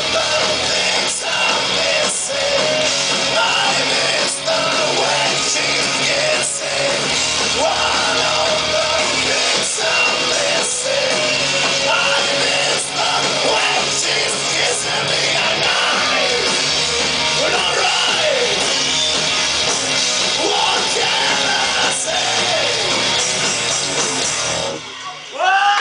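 A live rock band playing: electric guitars, drum kit and a man singing into the microphone. The song stops near the end, and the first shouts from the crowd follow.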